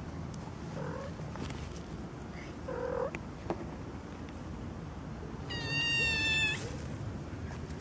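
A kitten meowing: two faint short calls, then one loud, high-pitched, steady meow about a second long, two-thirds of the way through.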